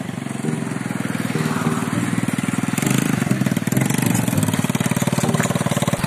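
Custom mini bobber pocket bike's small engine running on a test ride as the bike approaches, getting louder about halfway through. The carburettor has just been set and the bike is running well.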